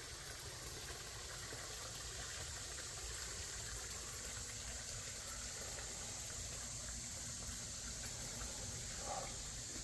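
Outdoor ambience: a steady, even hiss with a rough low rumble underneath, and a brief, short pitched sound about nine seconds in.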